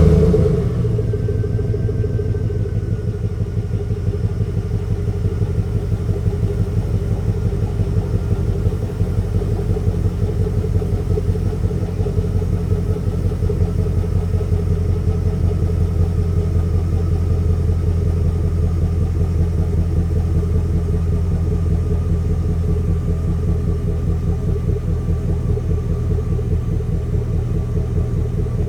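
The V8 of a Chevrolet Express full-size van idles steadily just after starting, with a pulsing beat. Its pitch settles slightly in the first few seconds. A misfire on one cylinder makes it run like a 'V7'.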